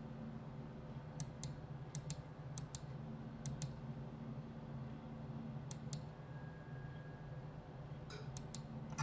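Sharp clicks from a computer mouse and keyboard, about a dozen in all, mostly in quick pairs, spread through a quiet stretch over a low steady hum.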